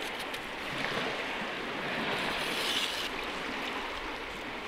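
Small waves washing steadily against the reservoir shore, with a brief louder hiss about two seconds in.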